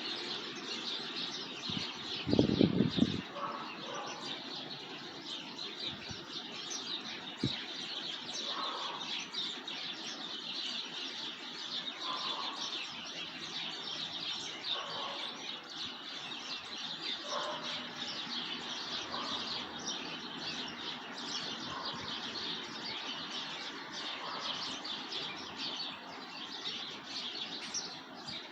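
Many songbirds chirping continuously in a dense chorus, with a simpler call repeating every two to three seconds. About two seconds in comes a brief loud low rumble, and a little later a single sharp click.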